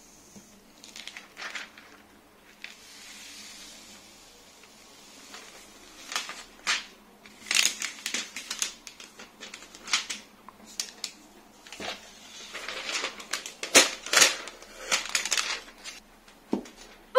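Thin plastic protective film peeled off an iPad screen protector, then plastic packaging crinkled and handled: scattered crackles and light taps, sparse at first and busiest in the second half.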